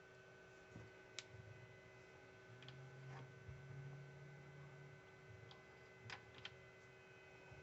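Near silence: a steady electrical hum with a few faint clicks.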